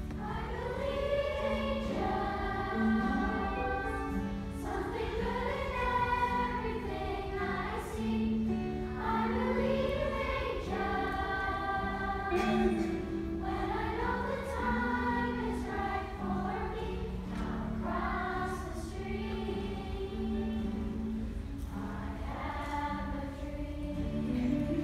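Children's choir singing a slow song in sustained phrases of a few seconds each, accompanied by guitar.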